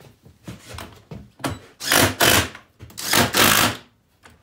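Cordless impact driver hammering nuts down onto the carriage bolts that hold a cart's caster plate, in two bursts of about a second each, with a few light knocks before them.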